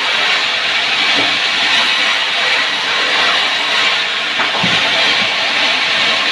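Wood saw running, a loud steady hissing noise with a couple of faint low knocks.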